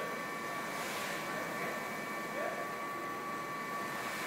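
Steady mechanical whirring with a thin high whine running through it, from the running carpet and drive of an indoor ski-simulator slope.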